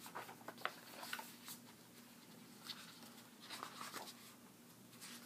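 Faint rustling of paper with scattered light clicks and taps as the thick pages of a photo book are handled and turned, over a faint steady low hum.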